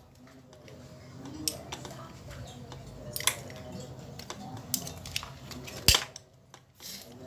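Scattered clicks and light metallic clinks of an electric fan motor being taken apart by hand, the end housing coming off the stator and a screwdriver touching the metal parts. One sharper knock about six seconds in.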